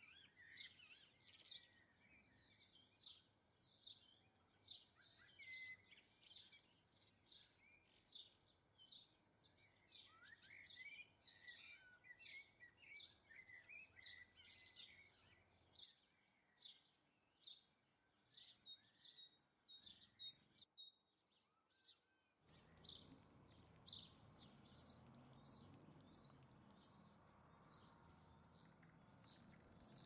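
Small garden songbirds chirping, a steady run of short high calls about one or two a second. The calls stop briefly about two-thirds of the way in, then start again over a low hiss.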